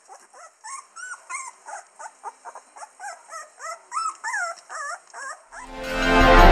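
Curly coated retriever puppies about three weeks old whining: a run of short, high, squeaky calls, two or three a second, each bending up and down in pitch. Background music fades back in near the end.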